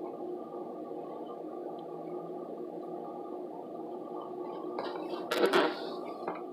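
Steady low room hum, broken about five seconds in by a brief burst of rustling and knocking as packaging is handled.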